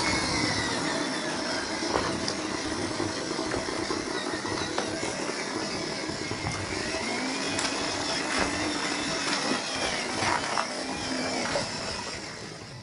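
The electric motor and gears of a 1/12-scale MN99 RC off-road car whining, the pitch rising and falling as the throttle changes, with a few sharp ticks.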